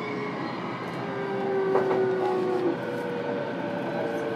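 Running sound heard inside a JR East E233-7000 series motor car: a steady whine from the Mitsubishi IGBT VVVF inverter and traction motors, with several tones at once over the rumble of wheels on rail. One of the tones cuts off abruptly about two and a half seconds in.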